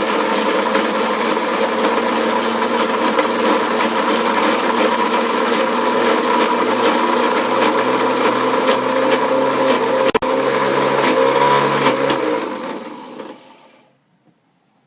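Electric mixer grinder running steadily as it grinds leftover cooked rice into a paste. The motor cuts out for an instant about ten seconds in, then is switched off and winds down near the end.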